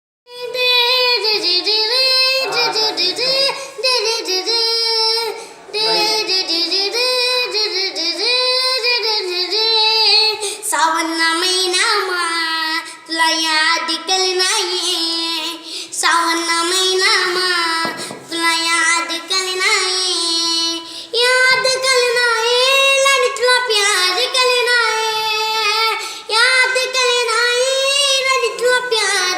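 A child singing a song solo, a high voice carrying a winding, ornamented melody without accompaniment.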